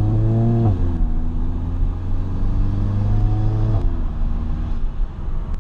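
Volkswagen GTI with an IS38 turbocharger upgrade accelerating. The engine note rises, the revs drop sharply under a second in, climb slowly again, and drop sharply a second time near four seconds.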